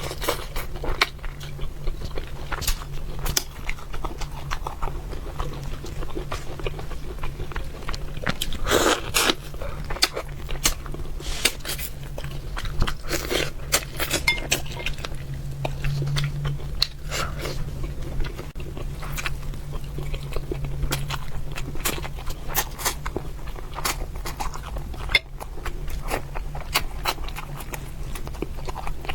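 Close-miked eating of fish: irregular wet chewing and biting clicks, with a steady low hum underneath.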